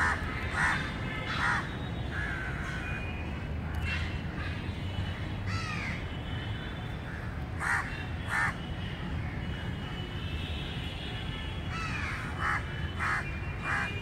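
Crows cawing in short calls: three at the start, two about eight seconds in and two more near the end, with fainter chirping from other birds behind them.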